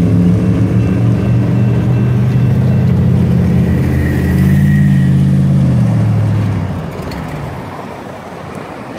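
Steady, deep engine drone that fades away about seven seconds in, leaving quieter road traffic noise.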